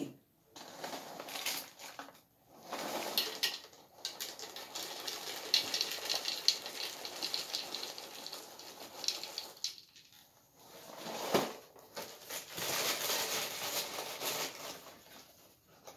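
Small round Dunkin' Caramel Macchiato cereal pieces pouring out of the cardboard box into a plastic bowl, a rattling patter of many small pieces in several spells with short pauses, and a sharp click a little past the middle.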